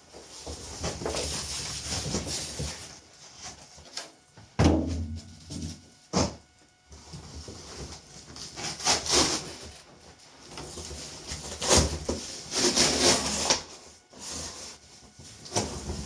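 TV packaging being handled and pulled apart: intermittent scraping and rustling, with a heavy thump about four and a half seconds in and a sharper knock shortly after.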